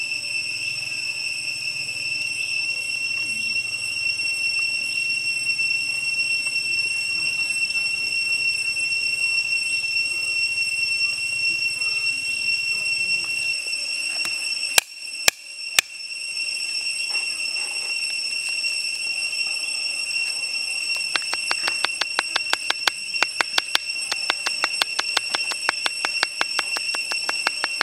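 A kitchen knife mincing garlic on a wooden chopping board: quick, even chopping taps, about seven a second, through the last several seconds. A few single taps come about halfway through. Under it all runs a steady, high-pitched insect drone.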